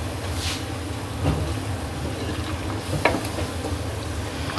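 Wooden spatula stirring spinach and milk in a metal cooking pan, with a few short scrapes and taps against the pan, over a steady low hum.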